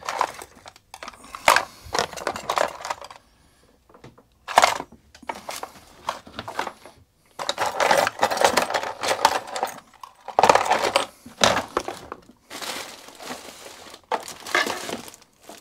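Irregular metallic clinks and clatter of small hand tools being handled on a workbench, in bursts with short pauses between.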